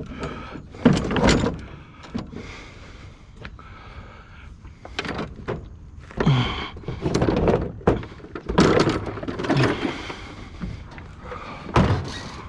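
Repeated thuds, knocks and clattering of objects being handled and set down, with door-like bangs.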